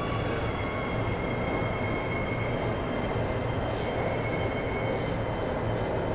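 Inside an AS-14 metro train braking into a station: steady running rumble with a thin electric whine that slowly falls in pitch as the train slows.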